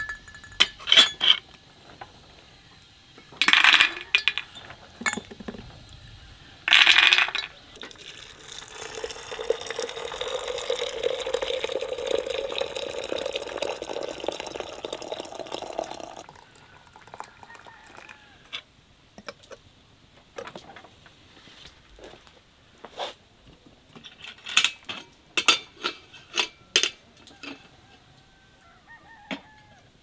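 Water poured into a glass teapot of rose hips in one steady pour lasting about seven seconds, starting about eight seconds in. Sharp clinks of glass and crockery come before the pour, and a run of lighter clinks follows it.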